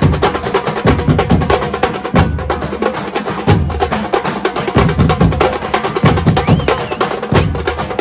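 Nasik dhol drum ensemble playing a fast, loud rhythm: dense rapid stick strokes over heavy bass beats that come about once a second.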